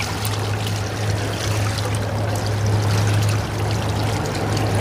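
Water trickling and rushing along the hull of a small jon boat under way, over the steady low hum of a Minn Kota electric trolling motor.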